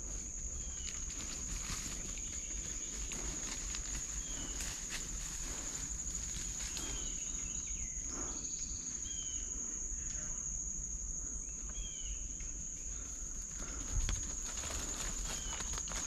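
A steady, high-pitched drone of insects singing in summer woods. Over it comes the soft rustling of brush and footsteps as someone pushes through undergrowth, with a few faint short chirps now and then and a light thump near the end.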